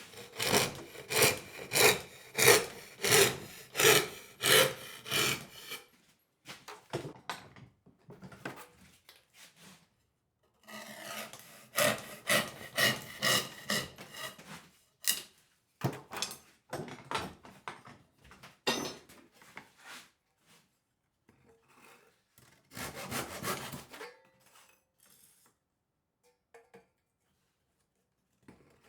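A hand tool worked back and forth on wood in even strokes, about two a second, for the first several seconds. After that come shorter, broken runs of strokes with pauses between them.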